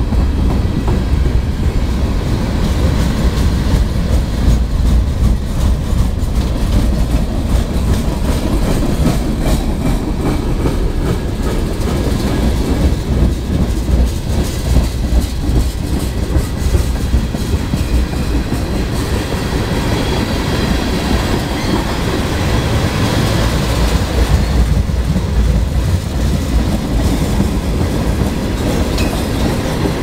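Freight train boxcars and tank cars rolling past close by: a loud, steady rumble with wheels clattering over rail joints.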